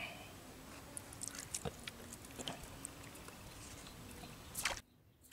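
Faint open-air background at the waterside, with scattered small ticks and chirps over a low steady hum. Near the end a brief rush of noise, then the sound cuts out abruptly.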